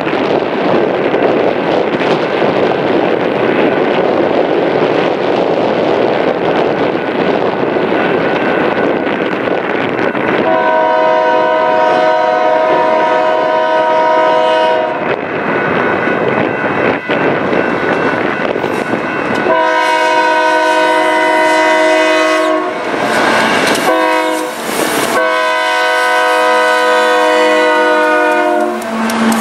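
Union Pacific diesel locomotives rumbling past on a freight train, then the lead locomotive's multi-note air horn sounds four blasts starting about ten seconds in: long, long, short, long, the grade-crossing signal.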